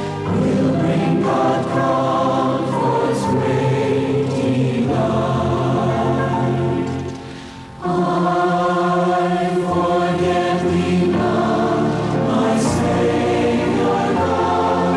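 Choir singing a devotional song with sustained notes. The sound briefly drops away about seven seconds in before the next phrase comes in.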